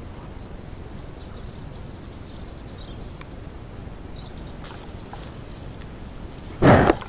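Steady faint hiss from a camera trap's microphone. Near the end comes one loud, noisy burst of about half a second as an animal pushes right up against the camera.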